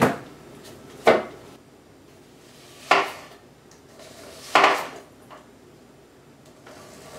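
Chef's knife slicing through an onion onto a bamboo cutting board: three separate strokes, about two seconds apart, each a short crunch ending in a knock on the board.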